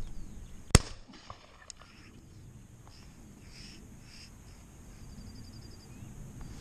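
A single shotgun shot, sharp and loud, about three-quarters of a second in, followed by two faint clicks.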